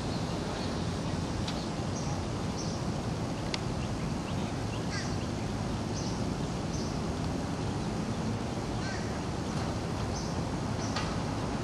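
Steady outdoor background rumble, with short high bird chirps scattered through it.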